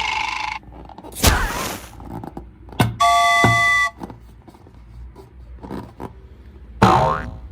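A string of short sound effects: a whoosh, a click, then a bright held chime of several steady tones for about a second, and a rising swoop near the end.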